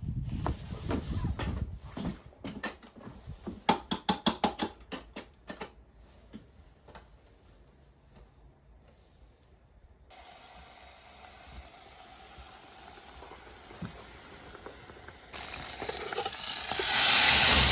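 A run of knocks and clicks, with a quick rhythmic burst of strikes about four seconds in, then a steady hiss that jumps much louder about fifteen seconds in, like food sizzling in a hot pan.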